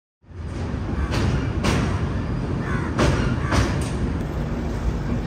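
Passenger train running across a steel truss bridge: a steady low rumble with about five sharp wheel clacks in the first four seconds. It starts abruptly just after the opening.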